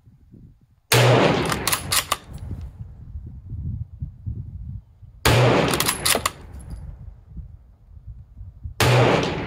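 Three rifle shots from a bolt-action Pattern 1914 rifle in .303 British, about four seconds apart, each followed by a fading ring and, after the first two, a few sharp clicks.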